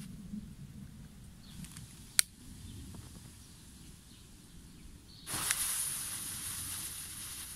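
A single sharp click about two seconds in, then about five seconds in a small primed organic white pyrotechnic star catches and burns with a steady hiss that fades slowly.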